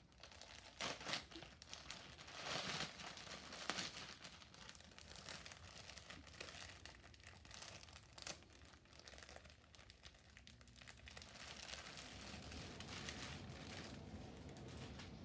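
Thin clear plastic bag crinkling and rustling as it is handled and opened to pull out a shirt. Sharp, irregular crackles come in the first few seconds, then softer rustling.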